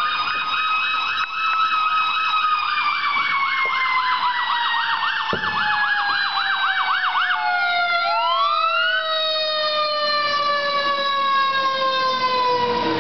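Fire engine sirens: an electronic siren on fast yelp, about four warbles a second, over the long wail of a Federal Signal Q2B mechanical siren that slowly winds down in pitch. The yelp stops about seven seconds in and gives way to a brief rising sweep, while the Q2B keeps falling.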